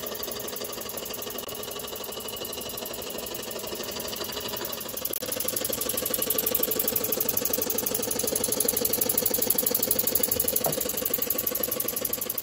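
Small model steam engines running, a rapid steady mechanical beat with steam hiss that grows louder about five seconds in.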